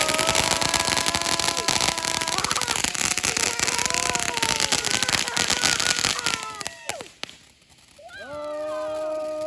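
Consumer firework crackling densely, with whistling tones over the crackle, for about six seconds, then stopping with a couple of last pops. Near the end comes a long howl-like cry that rises, holds one pitch and falls away.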